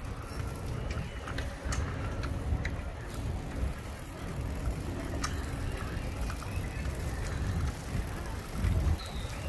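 Wind rumbling on the microphone of a moving bicycle rider, with a few light clicks.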